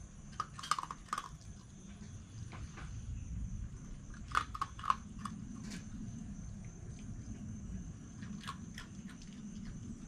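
Red fox chewing and crunching dry food (peanuts and cat kibble) in short bursts of crisp crunches: a cluster about half a second in, another around the middle and a shorter one near the end.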